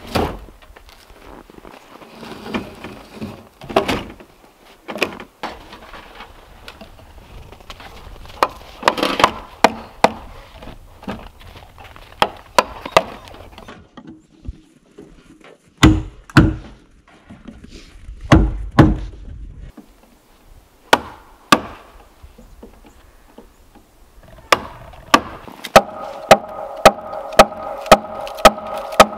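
Wooden mallet striking a chisel into a cedar log: a run of sharp separate knocks, some heavier, and near the end steady blows about two a second. A faint steady tone sounds under the last few blows.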